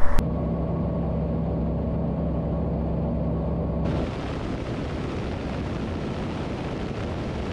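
Single-engine light aircraft's engine and propeller droning steadily in flight, heard muffled with a few steady low tones. About four seconds in it changes abruptly to a broader, hissier rush of engine and wind noise.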